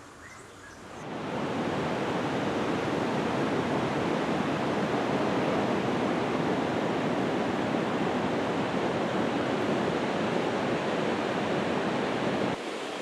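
Pacific ocean surf washing onto a beach: a steady rush of breaking waves that comes in about a second in and drops away near the end.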